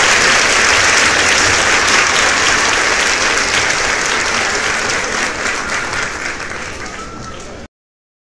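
Crowd applause, slowly fading, then cutting off suddenly near the end.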